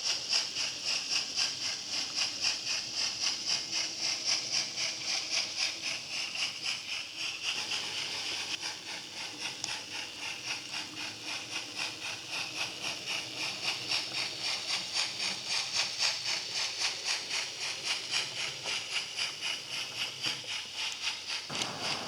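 Model train running, with a steady rhythmic hissing beat like steam chuffing, about two to three beats a second.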